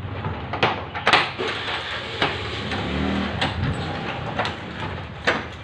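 Irregular plastic clicks and knocks from a handheld phone mount being handled and adjusted, about seven in all, over steady background noise.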